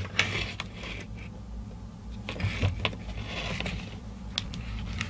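Handling noise of a small USB controller circuit board and its plastic cover: a few light clicks and short rustles as it is turned over, over a steady low hum.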